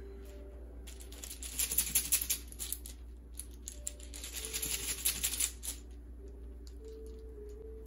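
Small number tiles clicking and rattling together inside a cloth drawstring bag as it is shaken and rummaged through, in two busy spells with lighter clicks between. Faint background music with soft held notes runs underneath.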